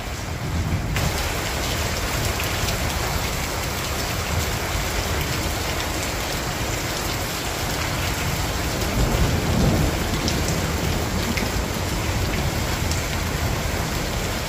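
Steady rain falling on wet patio tiles and garden plants.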